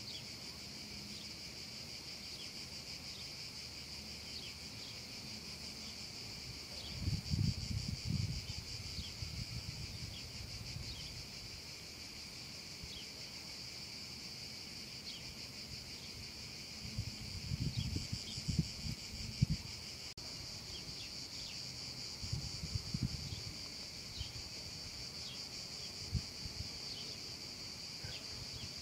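Cicadas singing in a steady, unbroken high buzz. A few brief low rumbles on the microphone come and go, about a quarter of the way in and again past the middle.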